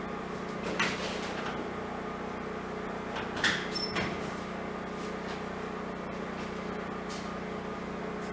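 A few sharp metal knocks and clanks, the loudest about three and a half seconds in, as parts of the ammo-box gasifier are handled, over a steady low hum.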